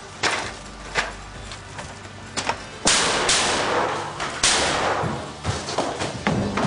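Shotgun fired in a series of sharp, irregularly spaced shots. The loudest two, about three and four and a half seconds in, trail off in a long hiss.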